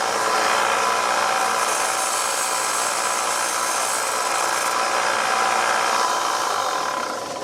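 Belt sander running steadily while deburring the cut end of a length of 5/16-18 threaded rod, then winding down near the end.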